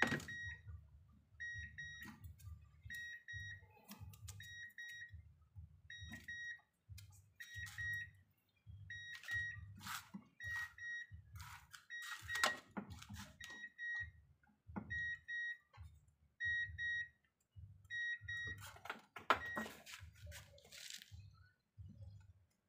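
A car's electronic warning chime beeping over and over at one high pitch, about once or twice a second, as from a door standing open with the ignition on. Clicks and rustles of wires and metal parts being handled, loudest near the end.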